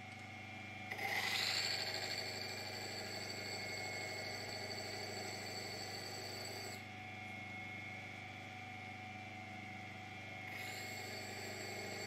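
Copper-wheel glass engraving lathe running with a steady low hum. A glass vessel held up against the spinning wheel adds a high cutting whine from about a second in until just past the middle. The whine stops, then comes back near the end.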